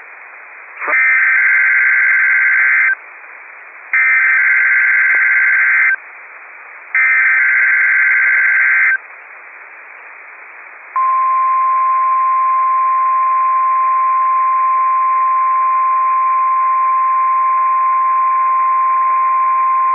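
NOAA Weather Radio SAME (Specific Area Message Encoding) header: three harsh two-second bursts of digital data tones, about a second apart, over receiver hiss, marking the start of a Required Weekly Test. About 11 seconds in, the steady single-pitched 1050 Hz warning alarm tone starts and holds for about nine seconds.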